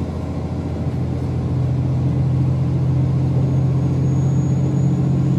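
Diesel train running, heard from inside the carriage: a steady low engine drone with track and running noise, growing louder about a second and a half in.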